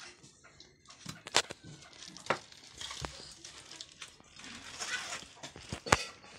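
Lychees being peeled by hand and dropped into metal dishes: a few sharp clicks and taps, the loudest near the end, with a rustle about five seconds in.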